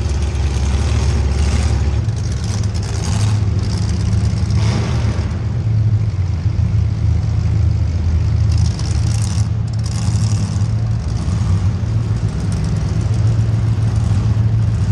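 A race vehicle's engine runs loud with a steady low drone. Rushes of hiss come and go above it.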